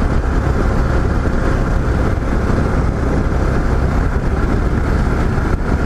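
Yamaha XT 660Z Ténéré single-cylinder motorcycle cruising steadily at highway speed: a loud, even drone of engine and rushing air on the rider's microphone.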